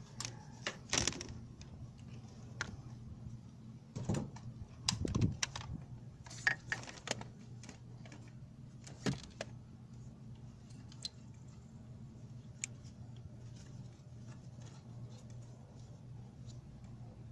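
Scattered clicks and short rattles of handling, loudest about a second in and again between about four and seven seconds in, over a steady low hum.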